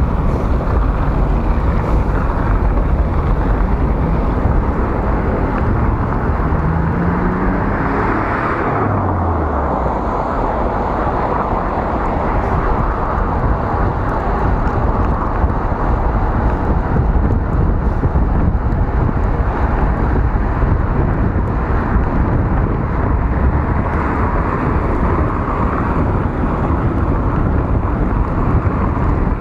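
Wind buffeting a moving bicycle rider's camera microphone, with city traffic running alongside. Around eight seconds in, a passing vehicle's engine note rises and then drops in pitch.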